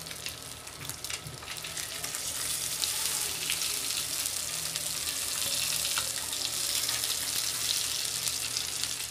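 Masala-coated fish slices shallow-frying in oil on an iron dosa tawa, a steady crackling sizzle. It grows louder about two seconds in, while the slices are turned with a spatula to brown both sides.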